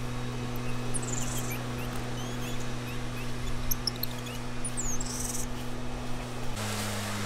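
Scattered high-pitched chirps and short whistled animal calls over a steady low hum. The hum drops slightly in pitch near the end.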